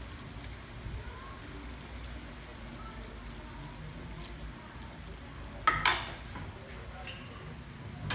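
Paklay stewing in a steel wok over a gas burner with a low, steady sizzle. About six seconds in, a metal ladle strikes the wok with a loud, short clink that rings briefly, and a lighter click follows about a second later.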